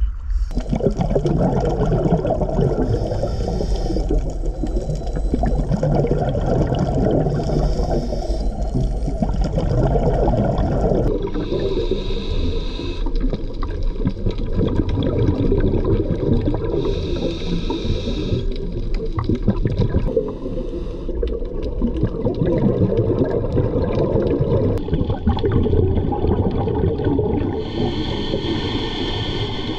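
Underwater sound heard through a camera housing: a dense crackling, gurgling water rumble, with a scuba diver's regulator breaths and bursts of exhaled bubbles every few seconds.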